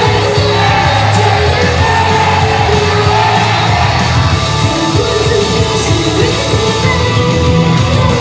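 An idol-pop song with a rock edge played loud over a stage PA, with singing and shouted fan calls along with it.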